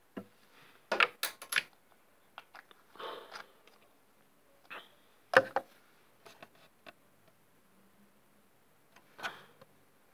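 Small hard objects being handled: a quick run of sharp clicks and knocks about a second in, a brief rustle around three seconds, one loud click a little past five seconds, and another knock near the end.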